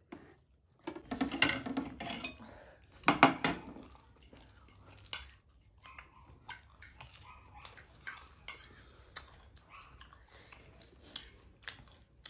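Utensils clicking and scraping against dishes while eating, with two louder, longer noisy bursts in the first few seconds, then a run of short, scattered clicks.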